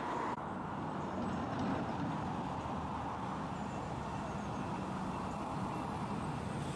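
A DAF CF lorry's diesel engine runs steadily as it drives toward the listener, with tyre noise on the road. There is an abrupt cut a moment in.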